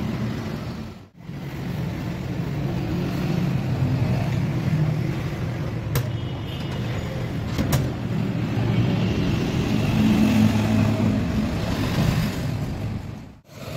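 Steady low rumble of a running motor vehicle, with two short clicks about six and eight seconds in.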